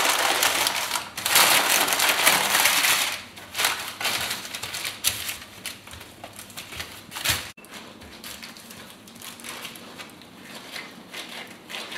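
Paper crinkling and crackling as gloved hands press and squeeze crumbly puff pastry dough through a crumpled sheet of paper. It is loud for the first three seconds, then softer crackling follows.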